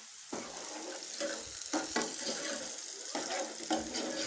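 Diced onion going into hot oil with frying potato cubes, sizzling, louder from about a third of a second in. A steel spoon stirs, with a few knocks and scrapes against the pan.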